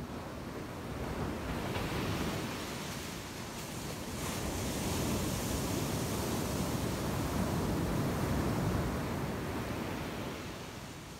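Ocean surf breaking on a sandy beach, a steady rush of water that swells briefly about two seconds in, then again for longer from about four seconds before easing off near the end.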